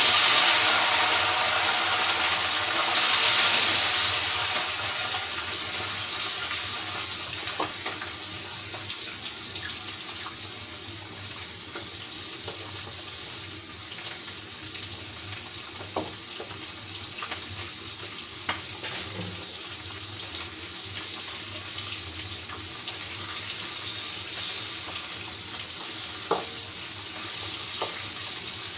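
Baim (spiny eel) fish frying in hot oil: a loud sizzle that starts suddenly as the fish goes into the pan, then slowly settles to a steady sizzle, with a few light clicks.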